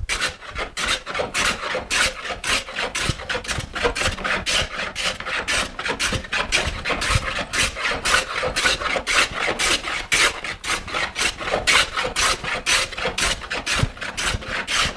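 Metal hand plane taking quick, repeated strokes across the grain of a wooden board, each stroke a rasping cut. The cut now sounds all the way across each pass, the sign that the cupped face is levelling flat.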